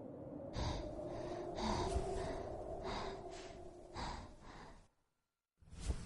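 A person gasping and breathing hard, about five breaths in a row over a faint steady hum; the sound cuts out abruptly near the end.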